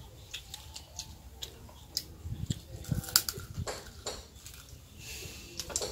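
Eating at a table: scattered light clicks and taps of chopsticks and dishes, with chewing of crisp roast duck and bone.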